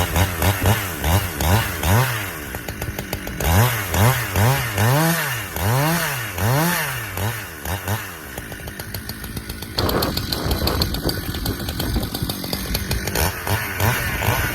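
Husqvarna chainsaw cutting through a red maple's trunk, its engine pitch rising and falling over and over as the chain loads and frees in the cut. About ten seconds in, the sound changes abruptly.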